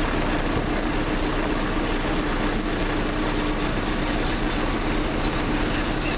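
Vehicle engine idling steadily: a constant hum over even noise, unchanging in level.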